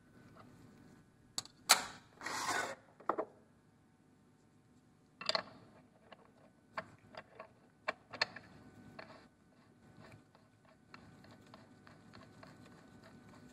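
Scattered clicks and clinks of an open-end wrench working the headset as it is tightened onto the calibration unit, with a short scraping rustle about two seconds in and a tighter run of clicks in the middle.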